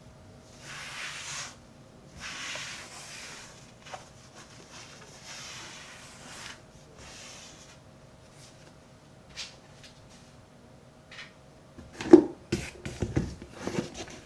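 Cashmere brush swept across the leather of a Red Wing 8080 boot in several soft swishing strokes, a final shine after cream and buffing. Near the end come a run of handling knocks and thumps, the loudest about twelve seconds in.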